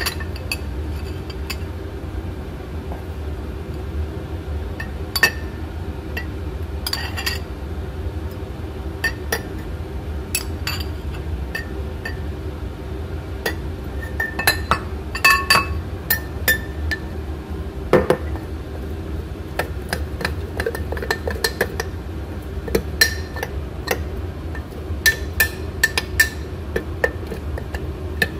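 Metal spoon and ceramic bowl clinking against a glass bottle while flour is added to a sourdough starter and stirred in. The clinks come singly and scattered, bunching into quick runs about halfway through and again near the end, over a steady low hum.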